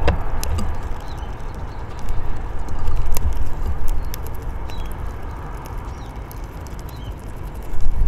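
Steady low outdoor rumble, with a few sharp clicks of bullfinches pecking and hopping on a wooden bird feeder and faint short bird chirps now and then.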